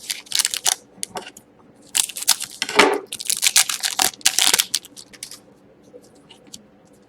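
Foil trading-card pack wrapper crinkling and tearing as a pack is opened. The crackling comes in a short burst at the start and a longer spell from about two to five seconds in, then dies down.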